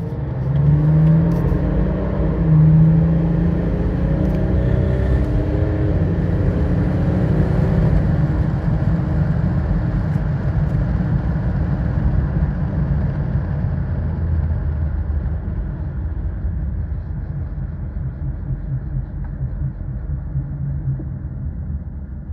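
The BMW M57 straight-six turbodiesel of a Range Rover TD6, newly fitted with a GT2260V turbo, pulling hard under acceleration, heard from inside the cabin. In the first eight seconds the engine note rises and drops back several times as the automatic shifts up. It then settles and slowly fades as the car eases off and slows.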